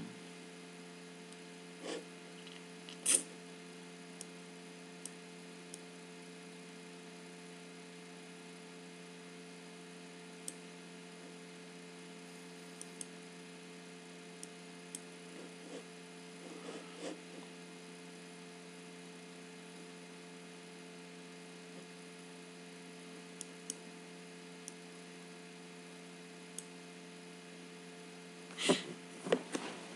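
Steady low electrical hum with faint hiss, broken by a few scattered short clicks, the sharpest about three seconds in, from a computer mouse used to drag on-screen sliders; a short cluster of louder noises comes near the end.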